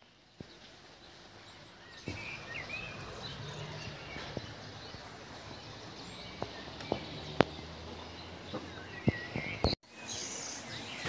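Outdoor ambience with small birds chirping now and then, and several sharp clicks or knocks scattered through it.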